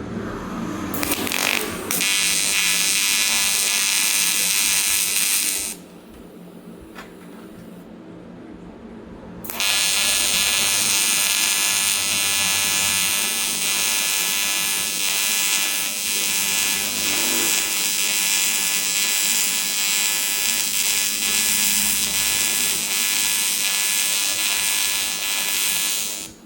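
An AC TIG welding arc on aluminium, buzzing steadily. It runs for about four seconds, cuts out for about four seconds, then restarts and runs until just before the end.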